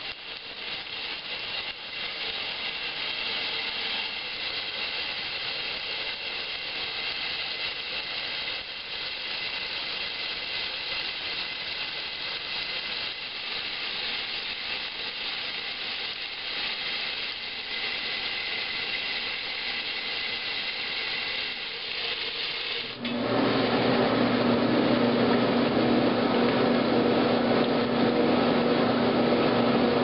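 1963 Maytag A700 washer running with a steady rush of water and machine noise. About 23 seconds in, the agitator starts and the sound jumps louder, with a steady motor hum under the sloshing and churning of the wash.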